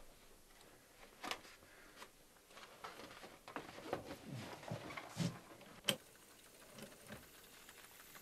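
Scattered light knocks and clicks of objects being handled, then a sharp click of a tape recorder key about six seconds in, followed by a faint whir as the tape winds back.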